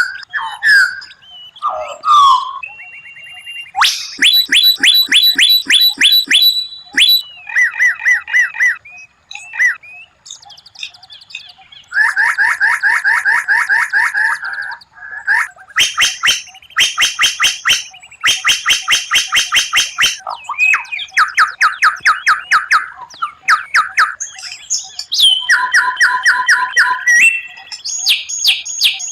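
White-rumped shama (murai batu) singing a long, varied song. Its phrases are fast runs of sharply repeated notes, the rapid-fire 'tembakan', and trills, with short pauses between them.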